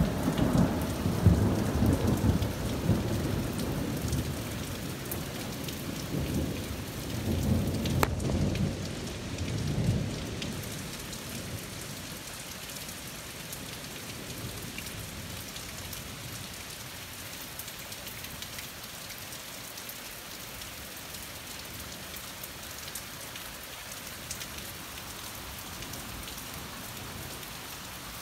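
Steady rain falling, with a long rolling rumble of thunder that dies away about ten seconds in. After that only the even hiss of the rain remains.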